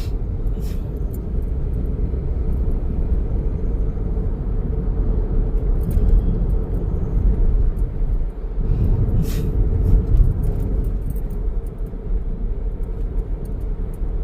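Steady low rumbling background noise over an open phone line on hold, with a few faint clicks.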